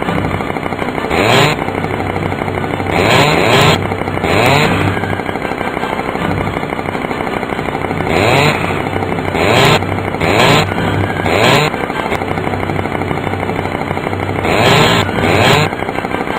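Two-stroke chainsaw idling, revved again and again in short blips that rise in pitch and drop back to idle.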